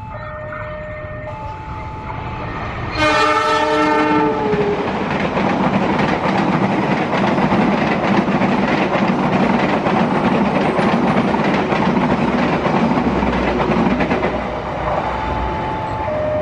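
A diesel locomotive's horn sounds once for just over a second. A passenger train then passes at speed, a loud steady rush of wheels on rails and carriages that lasts about twelve seconds. A two-tone railway crossing alarm chimes at the start and again near the end.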